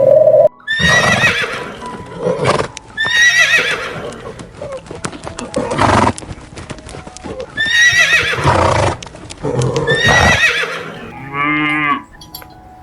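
Horse neighing: four loud whinnies, each quavering and falling in pitch, with sharp clicks between them. A shorter, lower call comes near the end.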